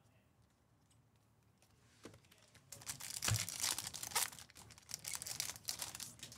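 Baseball card pack wrapper being torn open and crinkled, starting about two seconds in and going on for about four seconds as a loud, irregular crackle.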